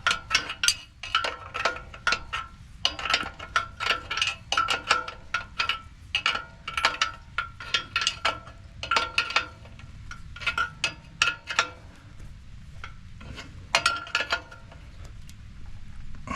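Steel wrench clinking and ringing against a bolt as it is worked round in short repeated strokes, about two clinks a second, stopping about twelve seconds in, then twice more shortly after. The 1-inch wrench fits the 15/16-inch bolt loosely.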